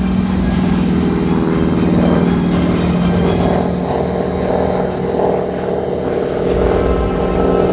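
North American Harvard's nine-cylinder Pratt & Whitney Wasp radial engine and propeller droning steadily in display flight.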